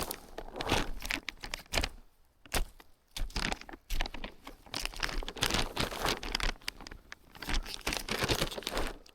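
Dry forest litter crunching and crackling: leaves and twigs crushed in quick, irregular clusters, with a short lull about two seconds in.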